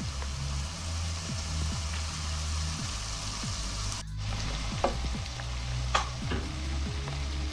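Diced carrots and onion sizzling steadily in hot oil in a pot, with two sharp clicks about a second apart a little past halfway. Low steady notes sit underneath.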